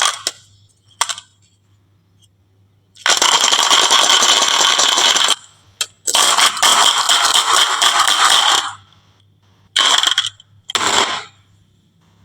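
Marbles rolling and clattering down a wooden HABA marble run: two long stretches of dense rattling, each two to three seconds, then two short bursts near the end, after a couple of single clicks at the start.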